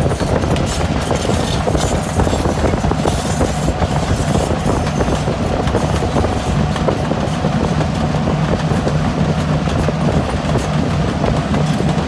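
Central Oregon & Pacific freight train running at speed: a steady rumble with a low hum that strengthens about halfway through, and scattered clicks from the wheels.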